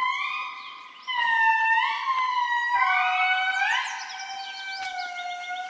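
Lemur calling with a series of loud wailing, siren-like cries, each rising in pitch and then held before the next rise, about five in a row. Faint high chirps sound behind the wails.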